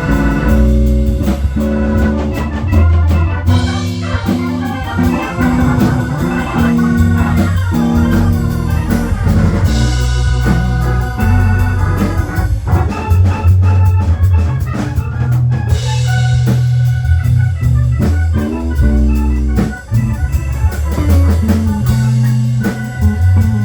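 Instrumental break in a rock or pop song: organ carrying the melody over bass and a drum kit, with no singing.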